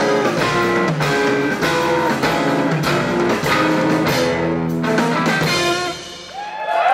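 Live jazz quartet of two electric guitars, bass and drum kit playing the closing bars of a tune, which ends about six seconds in. The audience starts cheering at the very end.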